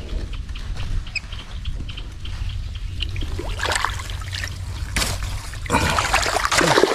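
Water trickling and sloshing over a steady low rumble, with louder splashes from about halfway through that are heaviest near the end.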